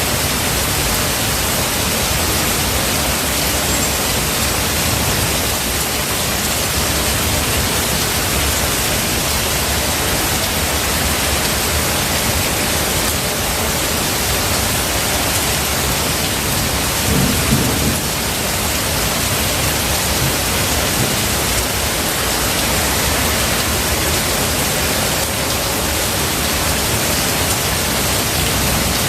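Steady heavy rain with a low rumble of thunder underneath; about two-thirds of the way through, a short louder roll of thunder.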